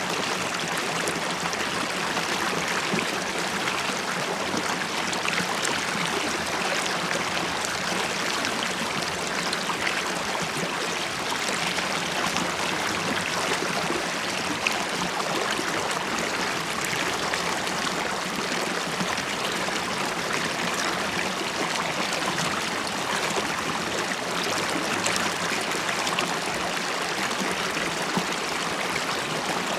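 River water flowing and bubbling over rocks: a steady babbling rush with small splashes scattered through it.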